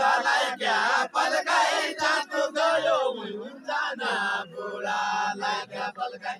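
A group of men singing together in a far-western Nepali deuda folk song, loud held and wavering sung phrases with brief breaks between lines.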